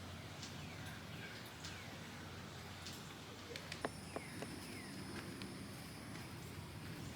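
Faint farmyard ambience: birds giving short chirps that slide downward, repeated several times, with scattered light clicks in the second half. A faint steady high tone comes in about halfway.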